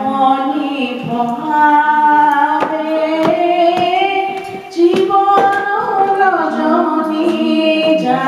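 A woman singing a Bengali song, holding long, drawn-out notes that glide between pitches. A regular beat of sharp taps or claps, about one every 0.7 s, runs under the middle of the phrase.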